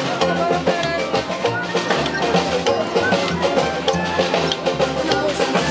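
Small acoustic swing band playing live: banjo strumming, double bass and a snare drum keeping a steady beat.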